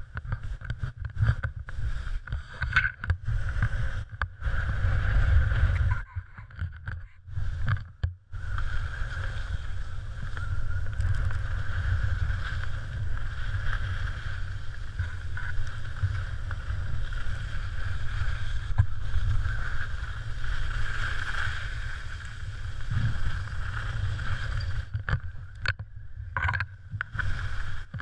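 Wind rumbling over a GoPro camera's microphone while skiing, with a steady hiss of skis sliding over snow; the noise drops out briefly a few times.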